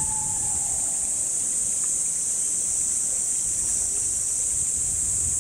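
Steady, high-pitched chorus of summer cicadas, over a low rumble of wind on the microphone.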